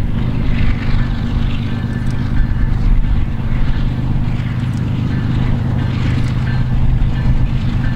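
Diesel-electric freight locomotives heading a loaded coal train, their engines running in a loud, steady drone as they pull at the top of a small grade.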